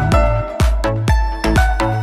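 Background music: electronic dance music with a steady thumping bass beat, about two beats a second, and bright synth notes above it.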